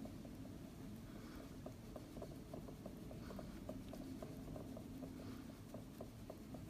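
Makeup brush being worked over a powder blush pan and across the skin: faint, scratchy rubbing swishes with light, regular ticks about three a second.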